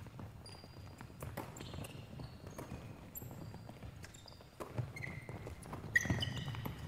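Basketball players running a defensive drill on a gym floor: sneakers squeak in short, high chirps again and again, with footsteps and a few knocks of the ball.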